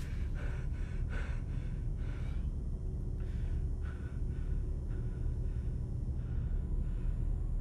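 A man breathing hard in short, ragged breaths, about one every half second to second and spacing out slightly after the first couple of seconds, over a steady low rumble.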